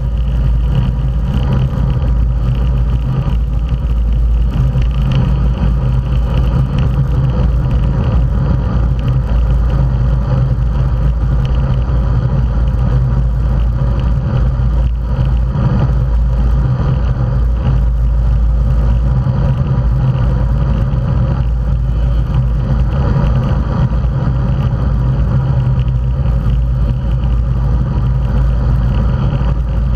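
Wind noise and tyre rumble picked up by a bicycle-mounted action camera riding at race speed in a bunch of road bikes. The sound is loud and unbroken, with a low, steady hum beneath it.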